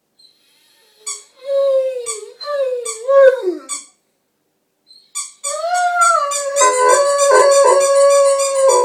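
A Rhodesian ridgeback howls along with a squeaky toy. The squeaks come in quick runs while the dog gives one wavering howl that drops away at its end. After a short pause comes a longer, steadier howl over rapid squeaking.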